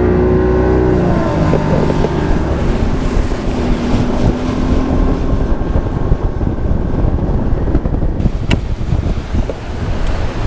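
Wind buffeting the microphone. Under it, a humming motor-like drone glides slightly at first and fades out about five seconds in. A single sharp click comes near the end.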